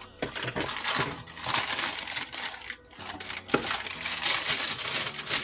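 Packaging crinkling and rustling as ingredients for a boxed cake mix are handled on a kitchen counter, with scattered light clicks, a brief lull near the middle and a sharp knock about three and a half seconds in.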